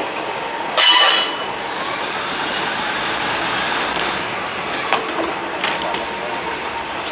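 Diesel railcar train running along the track, a steady noise, with one short loud blast about a second in.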